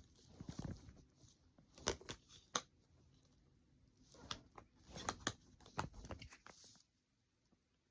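Faint handling noise from a Blu-ray set: a scattered series of short clicks and brief rustles, several grouped in the middle of the stretch.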